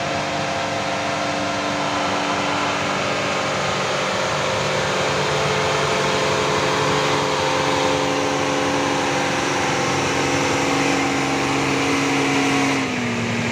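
Diesel engine of an old bonneted Mercedes-Benz 'Bagong' tow truck labouring uphill under load while towing a heavy truck, a steady engine note that drops slightly in pitch near the end.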